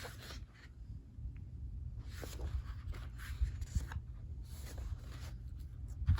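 Pages of a K-pop album photobook being turned by hand: several soft paper swishes about a second apart.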